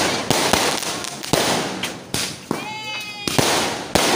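Fireworks going off: about six sharp bangs, spaced half a second to a second apart, over a continuous crackling hiss.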